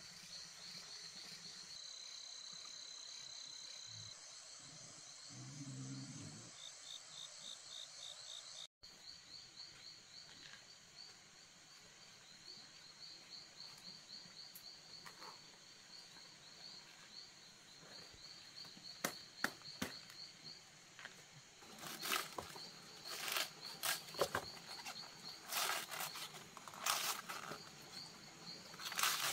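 Night insects, crickets or katydids, chirping in a steady train of fast high pulses. Toward the end comes a rapid run of crisp cutting and crunching strokes: a large kitchen knife slicing through fresh cabbage leaves.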